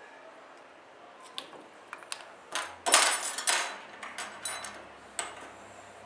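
Small metal fly-tying tools, scissors among them, being picked up and handled: scattered clicks and clinks, with a louder rattling clatter about three seconds in.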